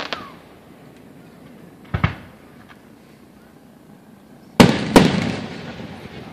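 Aerial firework shells bursting: a short double bang about two seconds in, then two loud booms close together near the end, each fading out over about a second.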